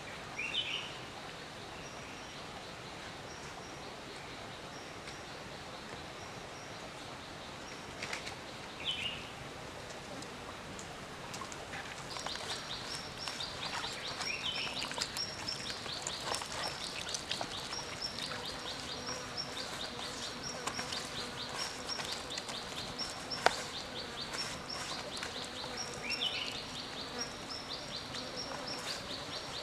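Forest ambience of birds and insects over a steady hiss: a short rising bird call repeats every several seconds, and about a third of the way in a rapid high chirping starts and keeps going. One sharp click stands out about two-thirds of the way through.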